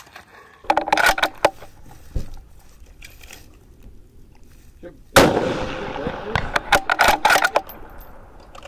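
A bolt-action precision rifle fires once about five seconds in, the loudest sound, with a brief ringing tail. Clusters of sharp cracks and clicks come about a second in and again from about six to seven and a half seconds.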